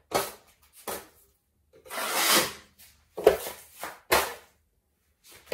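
Steel plastering knives and a stainless mixing plate being handled: a run of short scrapes and metal knocks, with one longer scrape about two seconds in and a sharp clack a little after three seconds.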